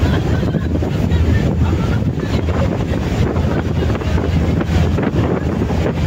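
Wind buffeting the microphone on the deck of a boat under way, a steady low rushing noise over the wash of water.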